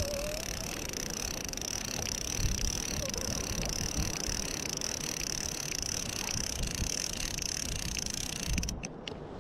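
Multiplier fishing reel being wound, a steady high-pitched gear whir with faint ticks, stopping abruptly near the end.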